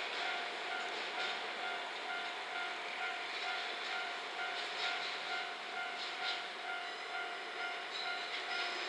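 DE10 diesel-hydraulic locomotive running light and approaching at a distance, a steady engine and rail noise. A ringing tone pulses over it about twice a second.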